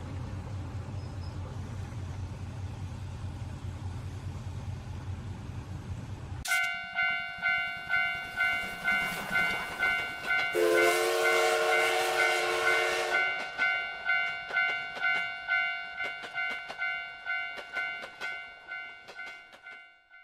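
A low engine rumble, then about six and a half seconds in a Japanese level-crossing warning bell abruptly starts its regular "kan-kan" ringing, a little under two strikes a second. Near the middle a train horn sounds one held chord for about two and a half seconds, and the bell fades out toward the end.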